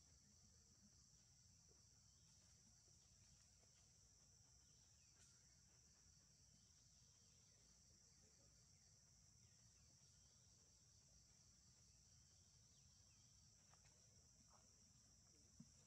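Faint, steady high-pitched chorus of insects.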